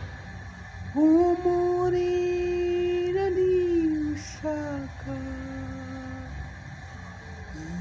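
A woman singing a slow worship song in Kinyarwanda, holding long, steady notes: one starting about a second in and sliding down near the middle, then a lower one that fades before the end.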